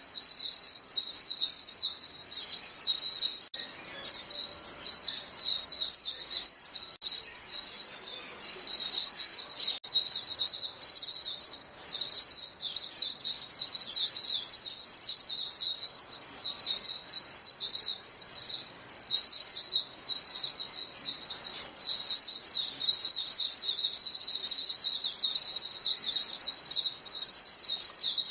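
A flock of white-eyes (vành khuyên) calling to each other: female calls, in a fast stream of high, thin chirps. The chatter runs almost without a break, with brief pauses about 4, 8, 12 and 19 seconds in.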